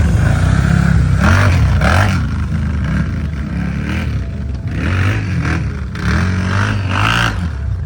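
Off-road vehicle engine revving up and down under load, with several short bursts of noise.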